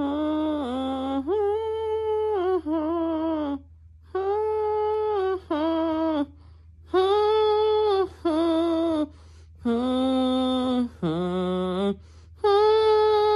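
A woman's voice humming a slow tune in long held notes, each steady in pitch, separated by short pauses.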